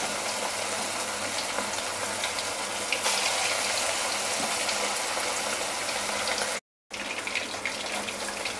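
Chicken 65 pieces deep-frying in hot oil: a steady sizzle with small crackles and pops. The sound cuts out for a moment about two-thirds of the way through, then resumes.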